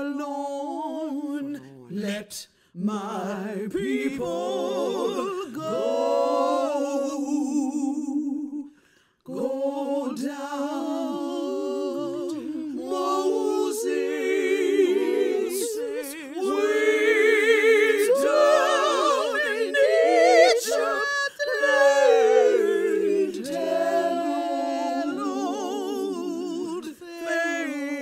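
Unaccompanied wordless singing by a woman, with long held notes and a wide vibrato. It breaks off briefly about eight seconds in.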